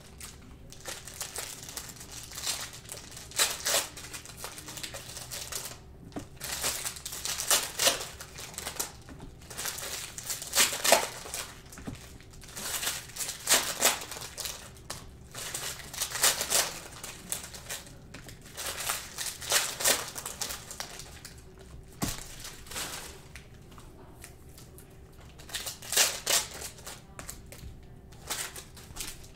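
Foil trading card pack wrappers crinkling and tearing as packs are ripped open, in short irregular rustles every second or two, with cards being handled.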